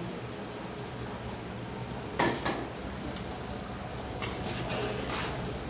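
Boiled chickpeas tipped from a bowl into a pot of simmering rice water, then stirred with a metal spoon against the aluminium pot, over a steady bubbling hiss. A sharp knock about two seconds in, with a few lighter knocks later.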